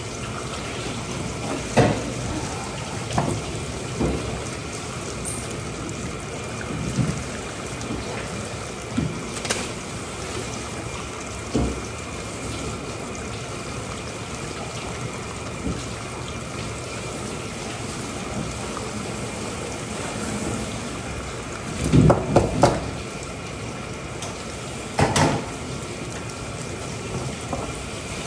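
Water running steadily, as from a tap, with scattered knocks and clatters, the loudest a quick cluster about 22 seconds in.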